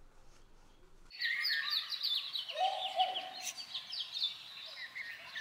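Faint room tone for about a second, then outdoor birdsong cuts in abruptly: many birds chirping and twittering in quick, repeated high chirps, with a lower, longer call near the middle.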